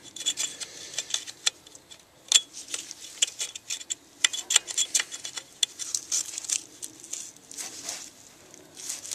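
Plastic wiring-harness plug being pushed and worked onto an EGR valve's electrical terminal: a string of irregular sharp clicks and rattles as the stiff plug is forced to seat fully.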